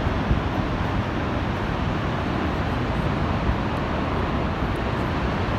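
Niagara Falls rushing: a steady, unbroken wash of falling-water noise.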